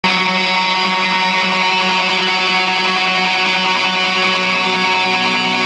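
Death metal band playing live through the PA: loud distorted electric guitars holding a steady, sustained chord, with no clear drum beat.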